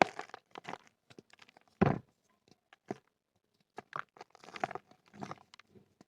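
Dry red clay crumbling, an irregular run of crunches and crackles. One louder, heavier crunch about two seconds in, and a brief lull in the middle.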